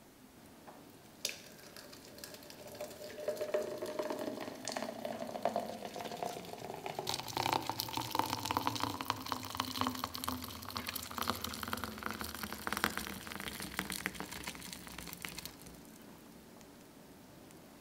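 A thick chocolate-banana shake is poured in a stream into a tall glass, gurgling and spattering as the glass fills. There is a sharp click about a second in, and the pouring stops a couple of seconds before the end.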